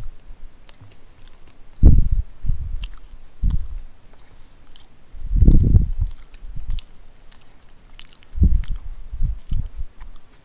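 A person chewing a mouthful of sub sandwich close to the microphone, mouth closed: low, muffled chomps in short bursts with pauses between.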